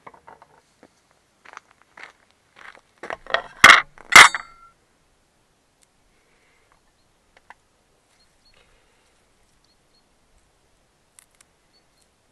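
Dishes and metal utensils being handled: a run of light clinks and knocks that builds to two sharp metallic clanks about four seconds in, the second ringing briefly, then only a few faint ticks.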